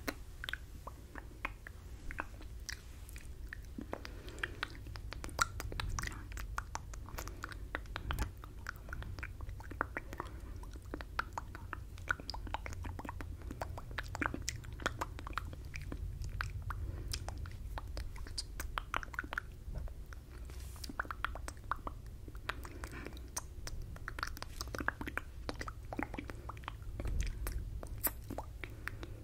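Unvoiced 'fishbowl' mouthing right at a fur-covered microphone: wet lip smacks and tongue clicks coming thick and fast, with no spoken words, over a faint low hum.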